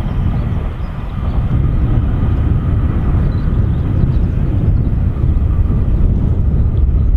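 Steady, loud low rumble of trains running on the electrified main line, with no sudden knocks or horn.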